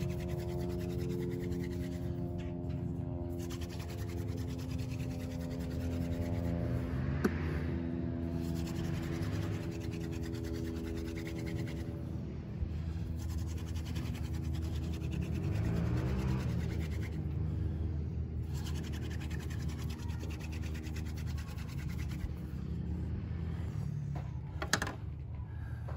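Hand-drill fire-making: a horseweed spindle twirled between the palms and grinding into a tulip poplar fireboard, a continuous dry rubbing of hands on the shaft and the spindle tip in the smoking notch. A steady droning hum sits underneath, and there are a couple of sharp clicks near the end.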